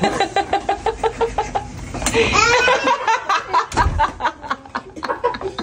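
Young child laughing in fast, high-pitched bursts, about eight a second, then a few rising and falling squeals.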